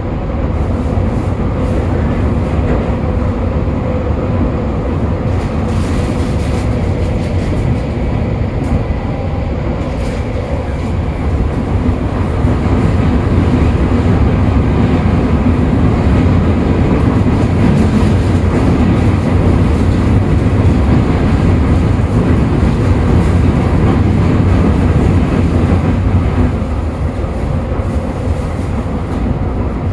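Toei 5500-series subway train running in the tunnel, heard from inside the car: a steady, loud rumble of wheels and running gear. It grows louder about twelve seconds in and eases again a few seconds before the end.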